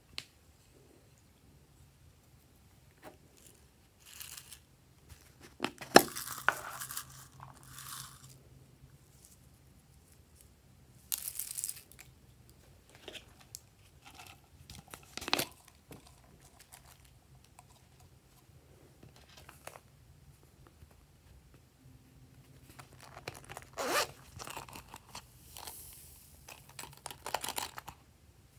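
Plastic packets and bottles of slime add-ins crinkling and clicking as they are handled and opened, with small sprinkles and beads poured out, in scattered bursts; the sharpest click comes about six seconds in. A faint steady hum underlies it.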